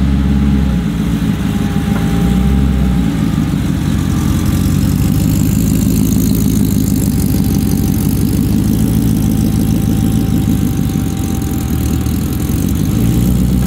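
Supercharged 5.0 Coyote V8 with a 3.8 Whipple supercharger idling steadily through long-tube headers and a full exhaust. The engine is not yet tuned and is running rich, pouring in a lot of fuel, which makes it smoke.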